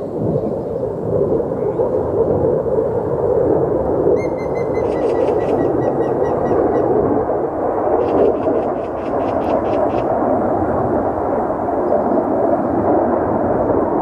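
Grey-headed woodpecker singing: short bursts of rapid, repeated high notes about four seconds in and again about eight seconds in, the first with a slightly falling whistled line. Under it runs a steady low rumble that is louder than the song.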